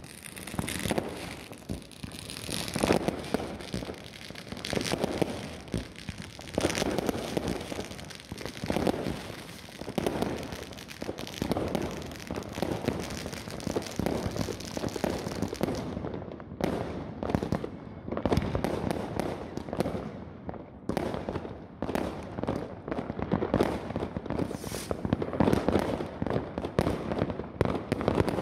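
Many fireworks going off at once: a dense run of bangs and crackles from shells bursting in the sky and ground fountains, several sharp reports a second with no real pause.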